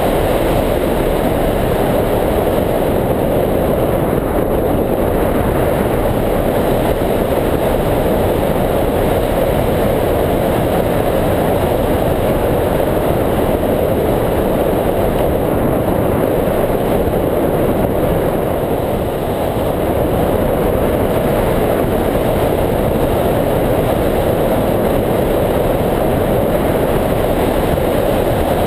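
Steady rush of wind over the microphone of a camera mounted on a hang glider's wing in flight.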